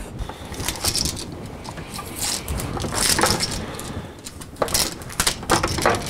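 Handling noise of tool work at an old metal electrical box: scattered clicks, light knocks and rustling, with a few sharper knocks in the second half.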